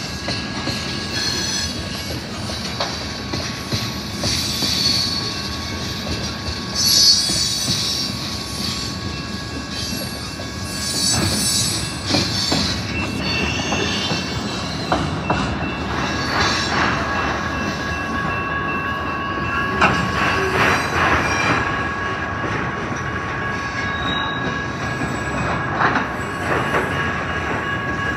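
A slow freight train of tank cars, a gondola and autorack cars rolling past, with the steady rumble and clatter of wheels on rail. A steady high squeal from the wheels grows stronger about halfway through, with occasional clanks of cars and couplers.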